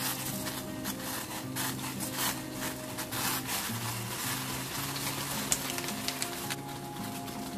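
Water at a rolling boil in a stainless-steel saucepan, bubbling and crackling steadily around a dashi stock pack as anchovy broth is made. Soft background guitar music plays underneath.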